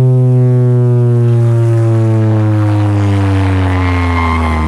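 Automotive competition sound system blasting a loud, deep bass tone that slides slowly down in pitch, the kind of test tone played for an RTA sound-pressure measurement. A higher whistling tone joins near the end.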